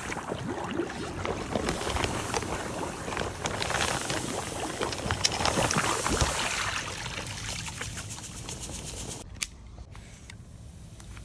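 Granular pool salt (pure dried vacuum salt) pouring out of a sack into pool water: a dense, steady noise full of small ticks as the grains stream in and hit the surface, tailing off about eight to nine seconds in. After that it is quieter, with one sharp click as the next bag is opened.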